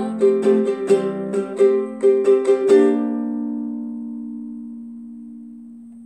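Guitalele strumming the closing bars of a children's song, then a final chord struck about three seconds in and left to ring, fading away slowly.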